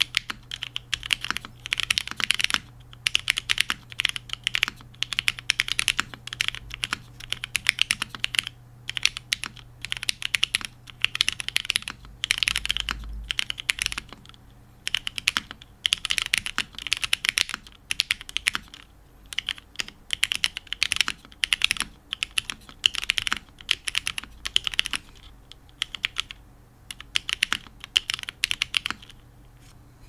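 Kafka TKL mechanical keyboard in its O-ring mount, typed on fast: a dense run of key clacks in bursts of a few seconds with brief pauses between them. The typing stops shortly before the end.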